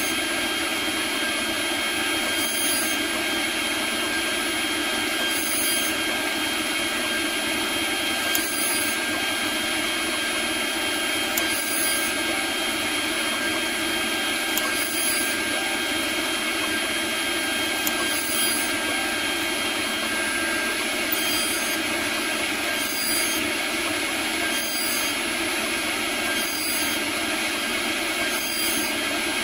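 CNC router spindle running steadily with a high whine while a small end mill cuts Delrin plastic. A brief change in the high cutting sound recurs every two to three seconds, coming more often near the end.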